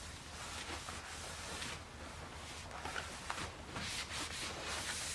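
Rag rubbing over a cast iron table saw top in uneven wiping strokes, wiping off oil after a rust clean-up.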